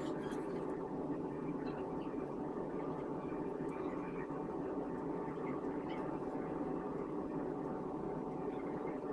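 Steady machine hum with a few faint small clicks.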